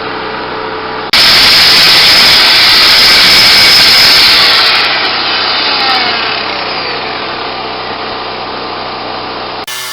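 Grinder working on rusty steel and old weld: it runs lightly at first, then bites hard about a second in with a loud harsh grind, and eases off again after about five seconds.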